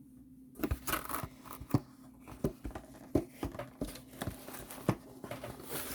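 Packaging being handled and torn open while unboxing a diamond painting kit: irregular crinkling, crackling and tearing with sharp snaps, starting about half a second in.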